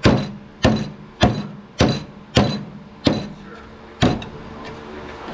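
Hammer blows on the rusted steel mower deck: seven sharp, ringing strikes about 0.6 seconds apart that stop about four seconds in.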